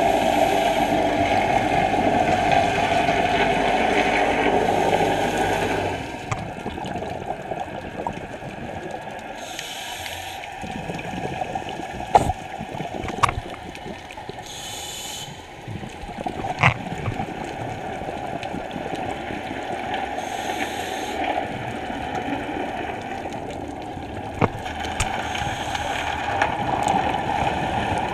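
Scuba breathing heard underwater through the camera housing: regulator inhalation hisses every few seconds, with bubbling and gurgling water and a few sharp clicks. A louder steady rumble stops about six seconds in.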